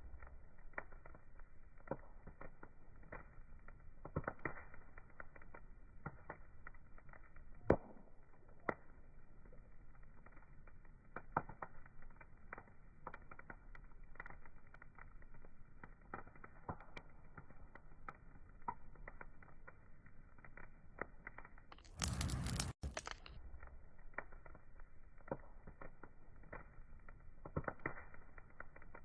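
Wood fire crackling, with irregular small pops and snaps and a sharper pop about eight seconds in. A brief burst of loud hiss lasts about a second, starting about 22 seconds in.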